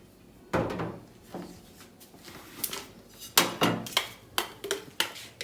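Espresso machine portafilter and double filter basket being handled: a dull knock about half a second in, then a run of sharp clicks and knocks over the last few seconds.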